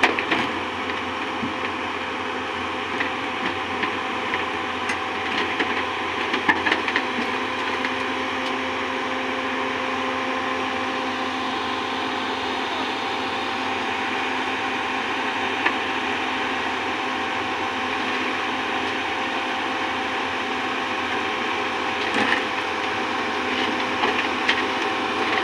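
Diesel engine of a Hyundai 215L crawler excavator running at a steady speed, with a few short metallic clanks near the start and near the end.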